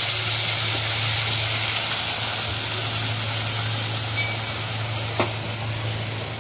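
Ginger, garlic and green chilli paste sizzling in hot oil with cumin and asafoetida in a steel kadhai, the sizzle slowly dying down as the watery paste fries.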